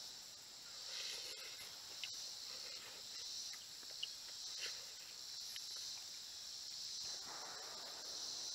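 Steady high chorus of insects, swelling and easing every second or two. A few light clicks of a spork against a metal canteen cup, and a brief rustle near the end.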